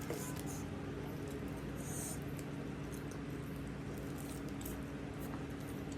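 Close-miked chewing: scattered wet mouth clicks and smacks of a person eating, over a steady low hum.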